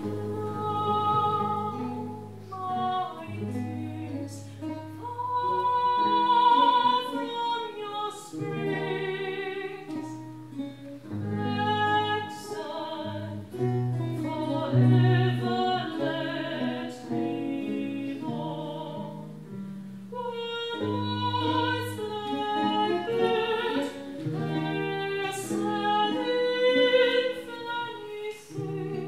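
Early-music ensemble: a female voice singing with vibrato over viols (viola da gamba) playing slow, sustained notes above a low bass line.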